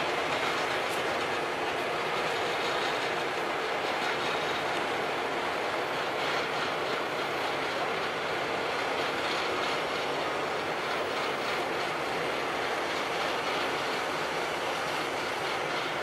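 Ammann AP240 pneumatic-tyre roller running steadily as it creeps forward over the base course, a constant diesel engine and drive noise.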